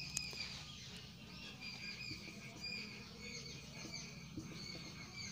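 Whiteboard marker squeaking faintly against the board while writing: short, high squeaks coming and going irregularly with the pen strokes.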